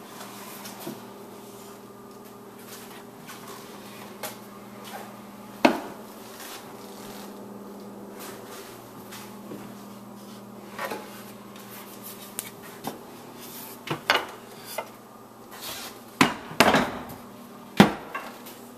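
Wooden pantry cupboards with rotating pull-out shelves being handled: scattered knocks and clacks of wood, a sharp one about six seconds in and several close together near the end, over a steady low hum.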